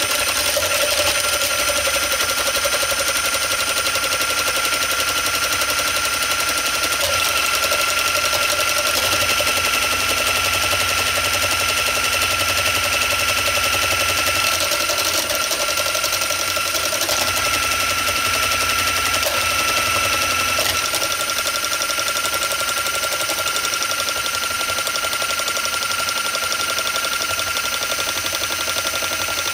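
Hand-held immersion blender running steadily at one speed with a high whine, emulsifying egg yolks and oil into mayonnaise as the oil is trickled in.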